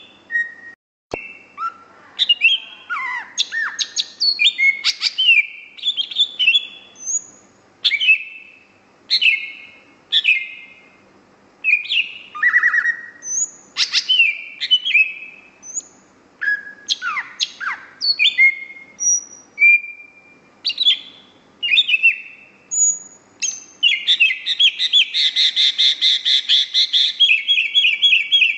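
Cucak hijau (green leafbird) in full song: a steady run of short, sharp whistled phrases, many sweeping down in pitch, broken by brief pauses. Near the end it goes into a fast, dense trill of rapid notes lasting several seconds.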